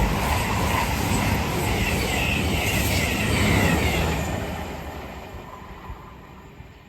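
CrossCountry express passenger train passing through at speed: a loud rush of wheel and engine noise with a whine sliding down in pitch, then fading away over the last few seconds as it leaves.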